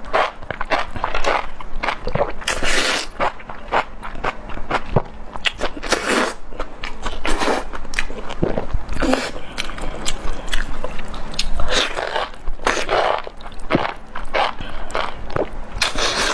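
Chewing of spicy enoki mushrooms: a run of many short, crisp bites and mouth clicks, broken by a few longer, noisier swishes.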